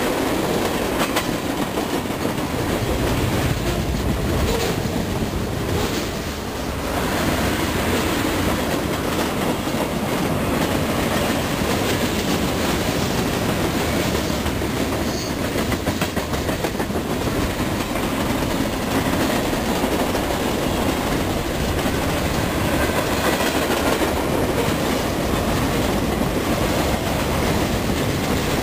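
Freight train's cars rolling past: a steady rumble of steel wheels on rail with a clickety-clack over the rail joints.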